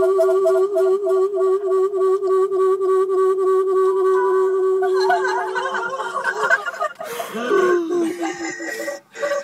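Electronic trippy sound-effects recording played through a car stereo: a steady warbling tone holds for about five seconds, then breaks into a jumble of wavering, laughter-like sounds and sliding pitches that swoop up and down near the end.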